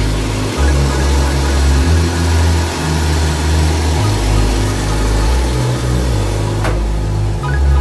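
Background music with a deep bass line stepping between notes every half-second or so, and a single click near the end.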